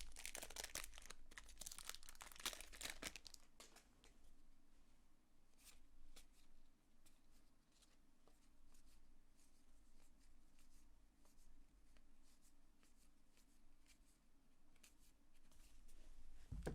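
Baseball card pack wrapper being torn open and crinkling for the first few seconds, then softer, scattered ticks and rustles as the cards are handled.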